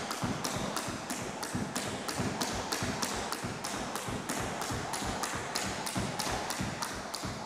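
Skipping rope slapping a wooden gym floor in a fast, even rhythm of about three strikes a second, with the light thud of trainers landing between turns.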